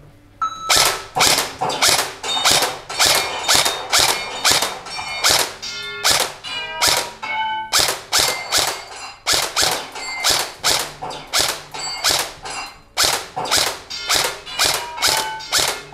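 Airsoft rifle firing rapid single shots, about two a second, from about half a second in, with pellets striking a target screen. Short ringing tones follow many of the shots.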